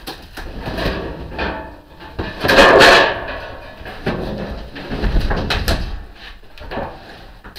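Wooden shipping crate being pried apart and handled: a run of knocks and rattles, with one loud scraping creak of boards about two and a half seconds in.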